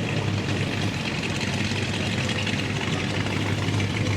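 Car engine idling steadily with a low hum.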